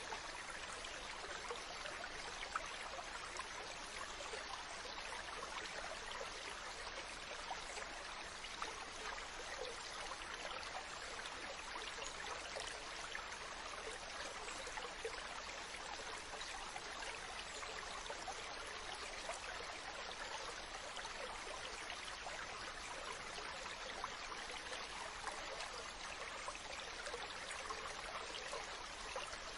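Mountain stream running steadily, water babbling and splashing over rocks in an even rushing wash.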